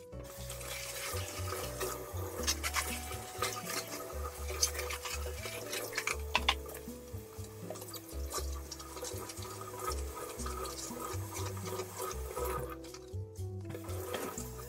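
Tap water running into a stainless steel sink while dishes are rinsed and scrubbed by gloved hands, with short clinks and knocks of dishware. Soft background music with a stepping melody and bass plays along.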